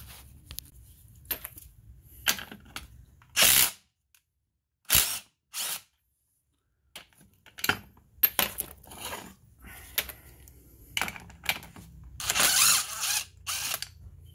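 Plastic cover and metal engine mount being handled and worked by hand: irregular clatters, knocks and scrapes, with two louder scraping bursts of about a second, a few seconds in and near the end.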